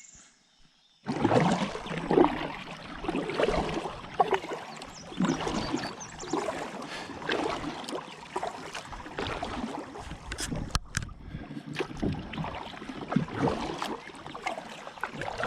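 Kayak paddling on a lake: the paddle dips and splashes and water trickles off the blades, with scattered sharp knocks. It starts suddenly about a second in.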